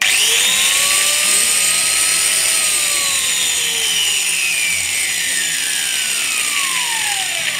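Small angle grinder test-run no-load after maintenance (brushes refitted, gears greased). The motor's whine climbs to full speed within about half a second, holds briefly, then falls steadily in pitch as the disc coasts down after switch-off. It runs normally.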